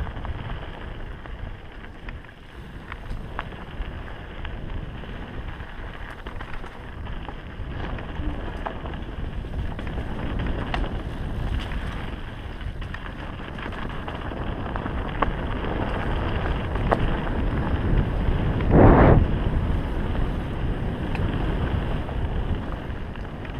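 Mountain bike riding fast down dirt singletrack: wind rumbling on the bike-mounted camera's microphone, tyres running over dirt and the bike rattling with many small clicks over rocks and roots. A louder rush of noise comes about nineteen seconds in.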